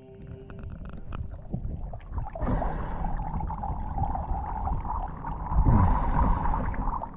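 Water gurgling, sloshing and splashing around a diver's camera as he surfaces from the seabed, with scattered clicks at first and the loudest surge of water about five and a half seconds in.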